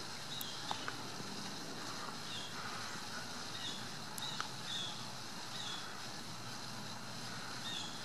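Outdoor ambience: a steady hiss with a short, high chirp repeating about once a second and a few faint ticks.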